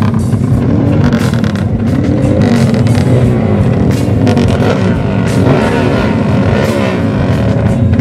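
Motorcycle with a loud open 'herex' exhaust being ridden hard, its engine revving up and down over and over.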